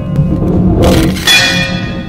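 Live-mixed, manipulated sound-art of bell-like struck tones. A ringing strike with many overtones comes about 1.3 s in and slowly dies away, just after a short hissing swell, all over a steady low rumble.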